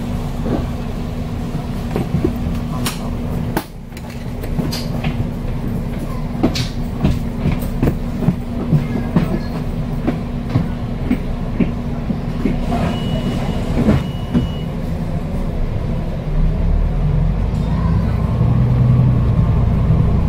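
Inside a Volvo B9TL double-decker bus on the move: its nine-litre straight-six diesel and the road noise make a steady drone, with frequent rattles and clicks from the bodywork and fittings. Two short high beeps sound a little past halfway, and about three-quarters through, the engine note deepens and grows louder.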